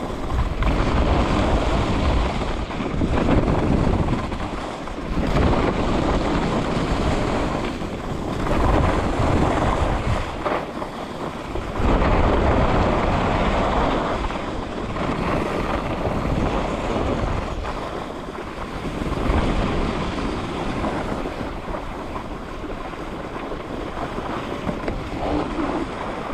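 Skiing downhill: wind rushing over the microphone and skis hissing and scraping on groomed snow, swelling and fading every few seconds.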